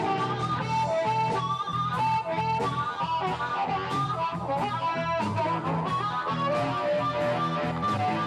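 Background music: a guitar-led tune.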